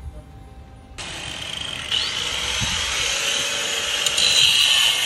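A corded power tool cutting metal at a shipping container's door locking bar, starting about a second in and running steadily with a high whine, louder near the end.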